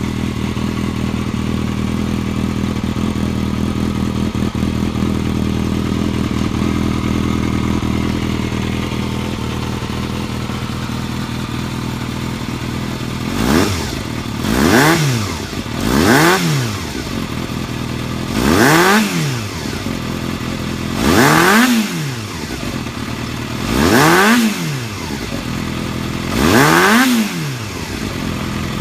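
Yamaha XJR400's inline-four idling steadily through a WR'S aftermarket silencer, then blipped seven times in the second half, each short rev rising and falling in pitch, about two to three seconds apart.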